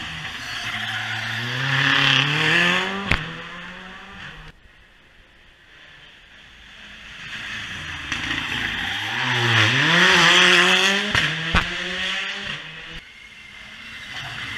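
Two modern rally cars, one after the other, taking a tight hairpin: each engine drops in pitch through the corner, then revs up hard as the car accelerates out, with tyres squealing on the tarmac. A single sharp crack comes from each car as it powers away, the first about three seconds in and the second near eleven seconds. The second car is the louder.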